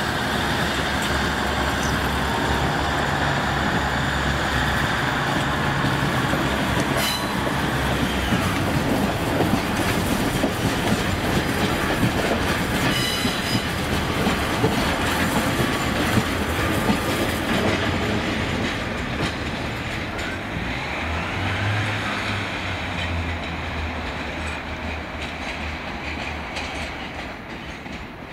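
A train passing on the line, wheels clattering over the rail joints. It is loud and steady for most of the time, then fades away over the last ten seconds or so as it moves off.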